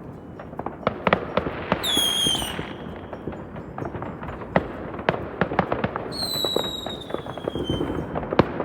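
New Year's fireworks going off all around, with many sharp bangs and crackles at irregular intervals. Two whistling fireworks sound over them: a short falling whistle about two seconds in, and a longer, slowly falling whistle from about six to eight seconds.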